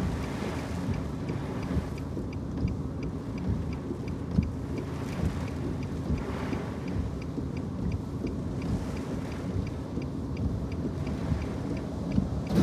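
Storm-force wind rumbling and buffeting against the microphone, steady throughout, with a faint, fast, regular ticking above it. There are a few brief louder gusts or knocks, one about four seconds in and one near the end.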